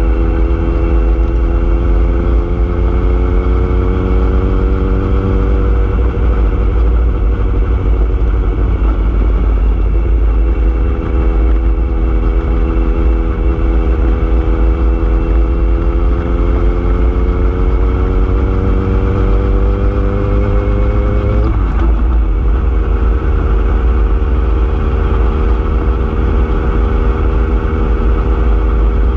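A motor vehicle's engine running under way, its note climbing slowly as it gathers speed and then dropping abruptly about 21 seconds in, as at an upshift, over a heavy low rumble of wind and road noise.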